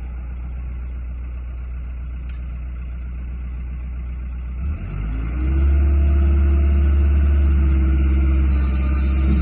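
Diesel engine of a Kobelco SK120LC Series 4 tracked excavator idling low and steady, then throttled up about five seconds in, the pitch rising and holding at a higher, louder engine speed.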